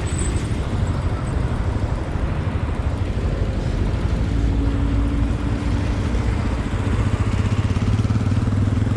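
Motorcycle engine running while riding, with a steady low rumble; a steady tone joins it about halfway through.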